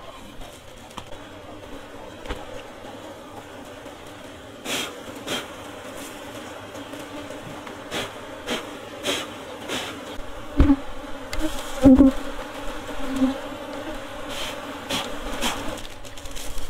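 Honey bees buzzing steadily around an opened wooden hive box, with scattered sharp clicks and knocks, a couple of them louder, as the honeycomb and box are handled.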